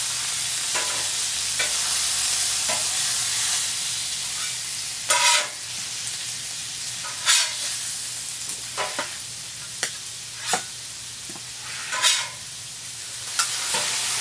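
Onion burger patties and sliced onions sizzling on a hot Blackstone steel flat-top griddle, the sizzle easing off somewhat partway through. Metal spatulas scrape and clink against the griddle plate about ten times as the burgers are lifted.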